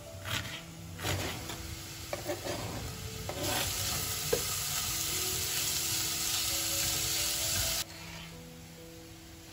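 Diced onion and carrot sizzling in oil in a pot as they are stirred with a spatula, an even hiss that starts about a third of the way in and cuts off suddenly near the end. Before it come a few knife chops on a plastic cutting board, and soft background music runs underneath.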